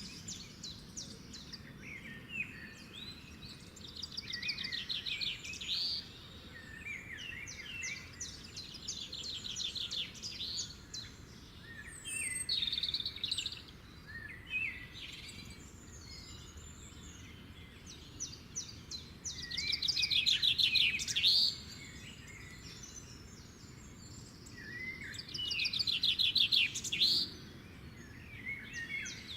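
Songbirds singing in bursts of fast, high trilling phrases every few seconds, over a steady low background noise.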